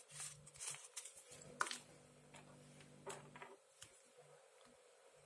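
Faint rustling of a folded paper instruction leaflet being handled and set down on a table, with a few short crinkles and light taps, the sharpest about a second and a half in.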